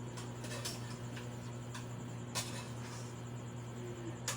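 A few irregular sharp clicks and taps, the loudest about two and a half seconds in, over a steady low electrical hum.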